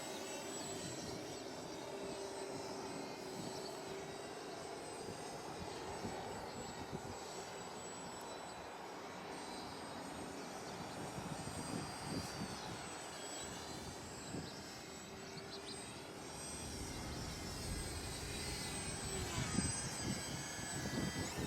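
Electric motor and propeller of an E-flite Inverza 280 radio-controlled 3D aerobatic plane whining in flight, its pitch rising and falling with the throttle several times. Wind rumbles on the microphone in the last few seconds.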